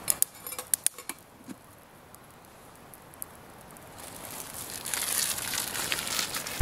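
The metal lid of a stainless steel Pathfinder bushpot clinks several times as it is set on the pot, in the first second or so. Small pops from the campfire under it follow. A hiss rises over the last couple of seconds.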